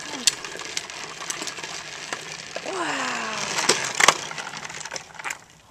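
Hard plastic wheels of a child's Spider-Man Big Wheel tricycle rolling over pavement: a steady rolling noise with scattered clicks, fading away near the end.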